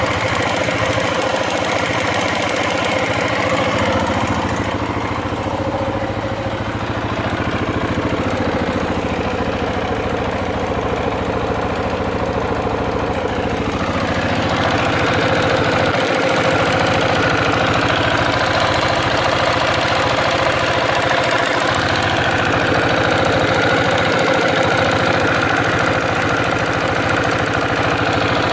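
KTM 690 Enduro single-cylinder engine idling with a valve chatter from the top end after warm-up, following a rebuild with new rockers, shafts and re-shimmed valves. The sound gets somewhat louder about halfway through.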